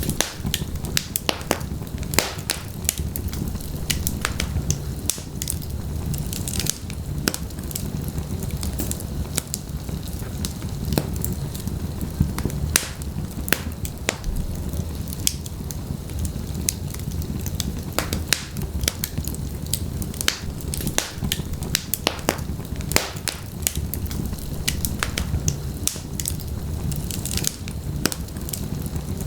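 Wood fire in a fireplace crackling, with frequent sharp irregular pops and snaps over a steady low rumble of flames.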